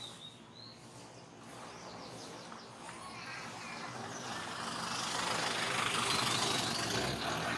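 A road vehicle passing close by: its noise swells from about three seconds in to a peak and begins to fade near the end. A couple of faint high chirps near the start.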